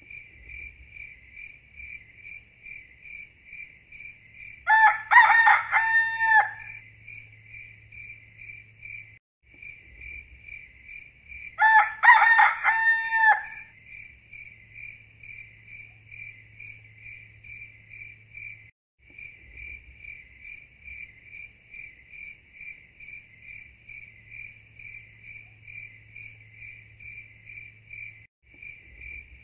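A rooster crowing twice, each crow about a second and a half long and several seconds apart, over the steady pulsing chirp of crickets.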